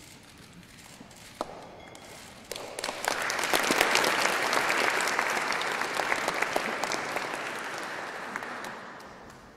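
Audience applauding: the clapping swells in about two and a half seconds in, is loudest a second or so later, then slowly dies away near the end.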